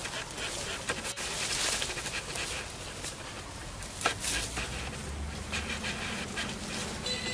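Rustling and crackling in forest undergrowth, leaves and twigs, with a few sharper snaps about a second in and about four seconds in, and a low hum from about five seconds in.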